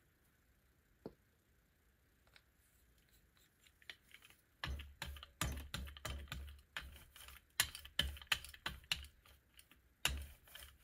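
Rubber brayer being rolled back and forth over a gelli plate to spread yellow acrylic paint: a run of quick, irregular strokes starting about four and a half seconds in, after a few faint clicks.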